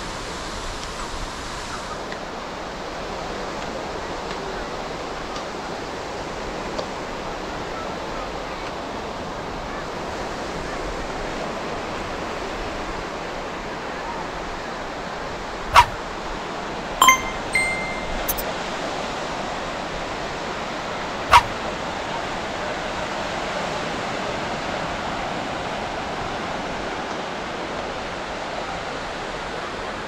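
Steady wash of ocean surf on a sandy beach. A few sharp, short sounds stand out about halfway through: one, then a quick cluster, then another a few seconds later.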